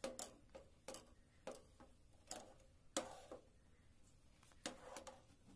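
A spoon tapping and scraping against a metal saucepan as milk is stirred: about nine quiet, light taps at uneven intervals.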